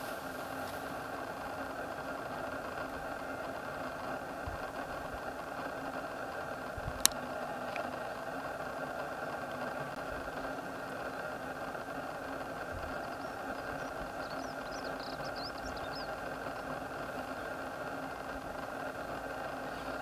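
Car engine idling steadily. A single sharp click comes about seven seconds in, and a few faint high chirps sound in the second half.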